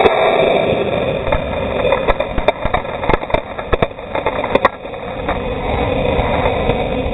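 Rocket motor exhaust blast at liftoff, heard from right beside the launch pad: a loud, rushing roar mixed with the rush of dust. Sharp clicks of grit and debris strike the camera many times between about one and five seconds in.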